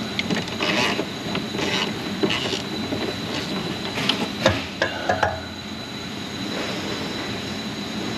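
Ratchet wrench backing out a rusted 10 mm heat-shield bolt, with irregular clicks and squeaking metal-on-metal scrapes as the seized thread turns.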